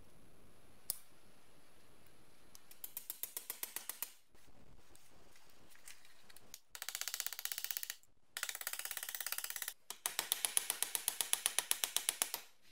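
Runs of rapid, evenly spaced metallic taps, about eight to ten a second, as the mincer's steel cutting blade and its locking piece are worked at a bench vise. There is a single click about a second in.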